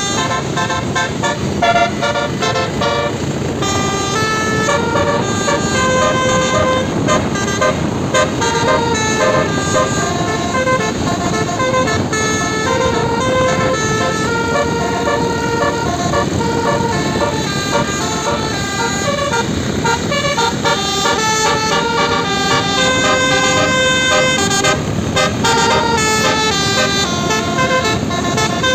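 Bus telolet horn, a Basuri 12-note multi-tone air horn, playing a continuous melody of stepping notes without a break, over a steady low rumble.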